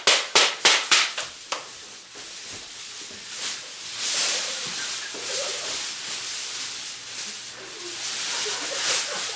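Crumpled aluminium foil being handled: a quick run of sharp crackling snaps in the first second, then steady crinkling and rustling that swells now and then.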